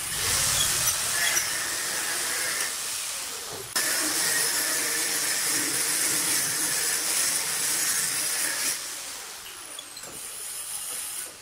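Caulking gun squeezing silicone sealant out of its nozzle as a bead is laid along the sink cutout of a granite countertop: a steady hiss that breaks off for an instant about four seconds in and fades away near nine seconds.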